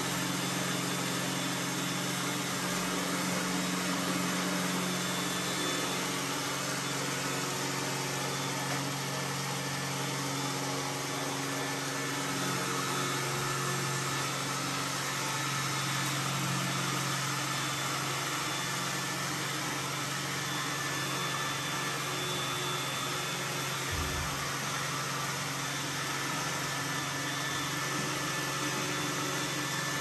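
iRobot Roomba s9+ robot vacuum running: a steady whir of its suction motor and brushes over a low hum, with one brief low thump near the end.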